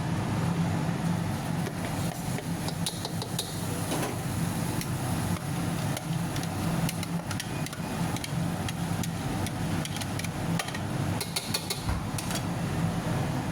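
A steady low hum with scattered short clicks and knocks.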